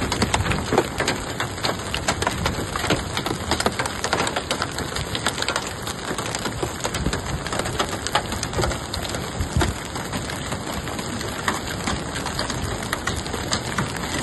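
Heavy hail falling: a dense, steady clatter of countless hailstones striking the ground.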